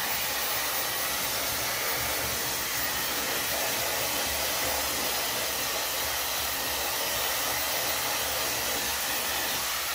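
Handheld blow dryer brush running steadily on its highest setting, a constant rush of blown air over the motor's hum.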